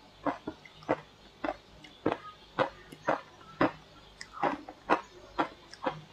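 Crunchy shaved ice being chewed close to the microphone: sharp crunches about twice a second in a steady rhythm.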